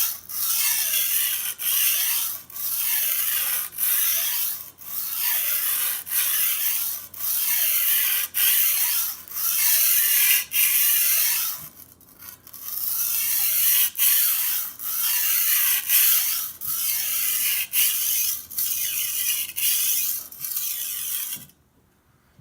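Steel chalef blade being worked back and forth across a coarse sharpening stone under heavy pressure: a rasping scrape on each stroke, a little more than one stroke a second, with a brief break midway. This is the metal-removing stage that sets a new edge. The strokes stop abruptly near the end.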